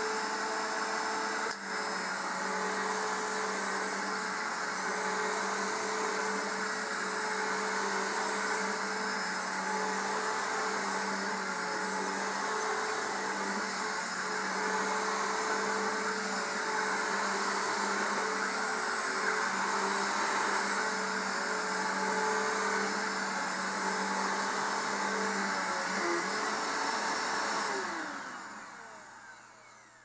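Bissell PowerForce bagged upright vacuum cleaner running steadily as it is pushed over carpet. A few seconds before the end it is switched off and its motor winds down, the hum falling in pitch as it fades.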